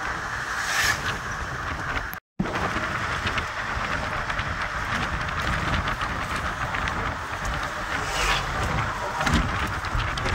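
Road and engine noise inside a moving car: a steady rush with small rattling clicks, broken by a brief silent gap about two seconds in.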